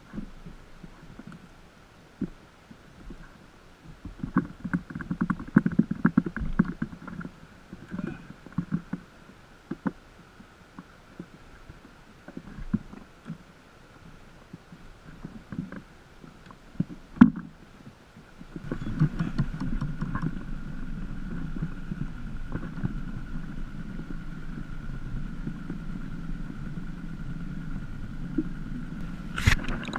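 Scattered knocks and handling clatter in a small fishing boat, with one sharp knock a little past halfway, then a steady low rumble that sets in about two-thirds of the way through.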